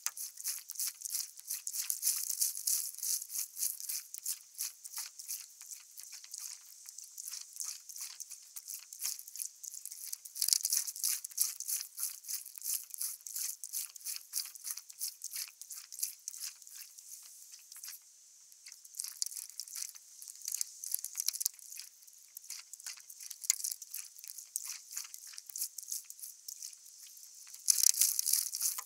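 Water crackling and splashing against the paddleboard's nose as it glides, a dense, high-pitched crackle that swells in louder stretches every several seconds.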